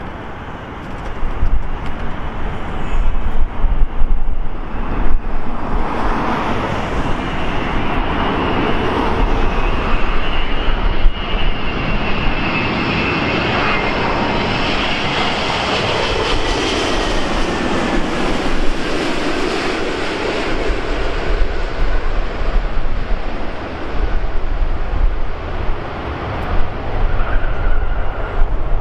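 Airbus A380 on low final approach: the jet noise of its four engines builds over several seconds and is loudest near the middle, with a high whine and a pitch that falls as the aircraft passes, then the noise eases off.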